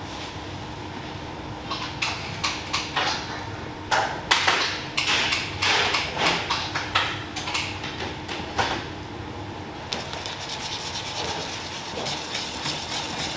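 Spatula knocking and scraping against a stainless steel mixing bowl as chocolate mixture is folded into cake batter, in irregular clanks. About ten seconds in, this changes to a wire whisk beating the batter in quick, even strokes against the bowl. A steady faint hum runs underneath.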